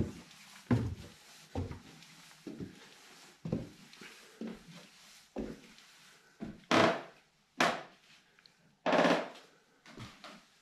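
Footsteps climbing a wooden pine staircase, a thud about once a second. Then, near the end, a few short, louder noisy bursts.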